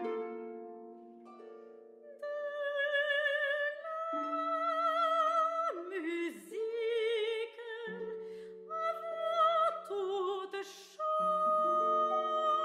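Operatic singing with a wide vibrato over sustained instrumental chords; the voice comes in about two seconds in and sings several held phrases with short breaks between them.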